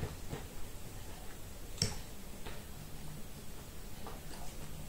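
A few faint clicks and ticks, the sharpest about two seconds in, over a low steady hum that comes in shortly after.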